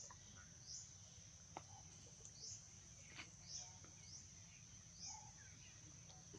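Near silence: faint outdoor ambience of a steady high insect drone, with short high chirps about once a second and a few soft clicks.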